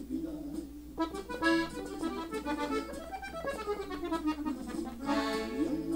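Gabbanelli diatonic button accordion in E playing a slow melody on the treble buttons, with stepping runs of notes; from about a second in the sound gets brighter and fuller.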